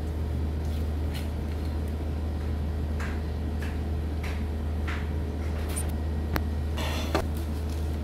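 A steady low hum, with a few faint light ticks and taps over it.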